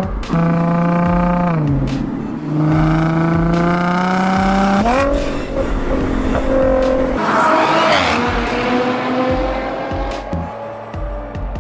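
Audi S4 B8's 3.0 TFSI V6 through an EGO-X valved exhaust, accelerating hard: engine pitch climbs and drops several times with gear changes and lifts off the throttle. Tyres squeal about eight seconds in as the car slides, and the sound fades near the end.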